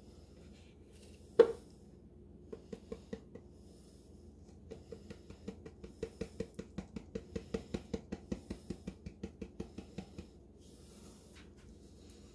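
Hand tapping the side of a plastic measuring cup filled with cement mix. A single sharp knock comes first, then a few quick taps, then a steady run of pats at about five a second that stops about two seconds before the end.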